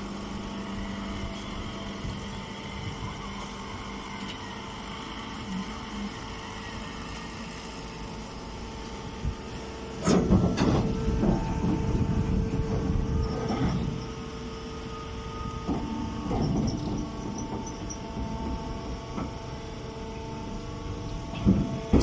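Hydraulic straw baling press running with a steady hum. A louder stretch of clattering lasts about four seconds midway, and a sharp knock comes near the end.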